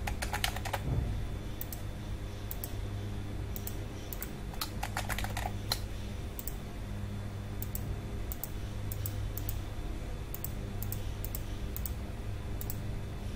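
Typing on a computer keyboard, key clicks in short irregular bursts with pauses between, over a low steady hum.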